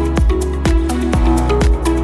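Background electronic dance music with a steady kick-drum beat, about two beats a second, under held synth notes.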